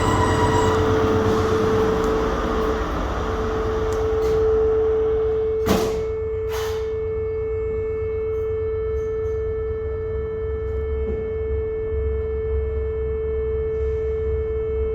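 Stannah platform passenger lift giving out a steady, unbroken single-pitched tone: the horrible noise the lift is making. Two short, sharp noises cut in about six seconds in.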